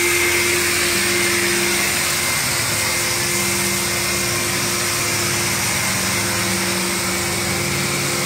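Corded electric insecticide fogger running steadily, its motor and blower whirring as it sprays fog.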